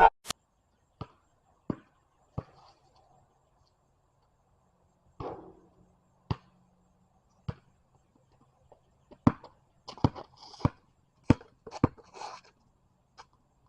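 Scattered sharp knocks and taps: four evenly spaced about two-thirds of a second apart at the start, a few single ones in the middle, then a quicker, irregular cluster near the end.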